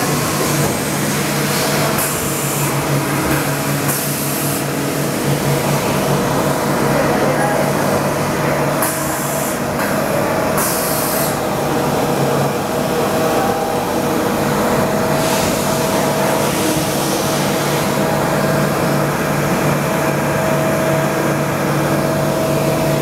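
Mazak Integrex i-200ST multi-axis CNC turning and milling center running a machining cycle, with flood coolant spraying on the work and a steady hum from the spindles. Several short hissing bursts come over it, about a second each, twice in the first few seconds and twice near the middle.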